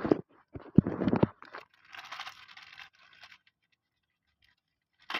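Handling noises: a few low thumps about a second in, then scratchy, crinkly rustling that stops about three and a half seconds in.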